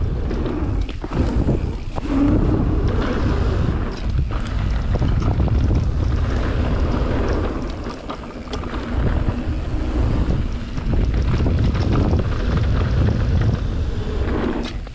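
Wind rushing over an action camera's microphone as a mountain bike descends a dirt trail at speed, with tyre noise on the dirt and scattered knocks and rattles from the bike.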